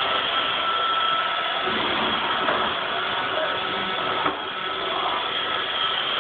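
Roomba robot vacuum running: a steady whir of its motor and brushes with a faint high tone, and a brief knock about four seconds in.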